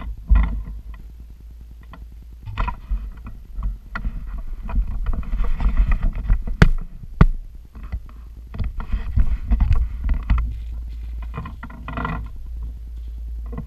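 Handling noise close to the microphone: irregular rustling and clatter with a few sharp clicks, the two sharpest about halfway through, over a steady low rumble.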